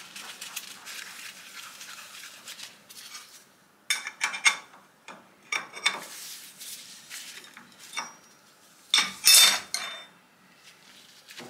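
Gloved hands handling metal parts at a stopped lathe: a soft rustle, then a series of sharp metallic clinks and clanks as a steel C-spanner is fitted to and worked against the slotted nut of a lantern chuck, the loudest cluster about three-quarters of the way through.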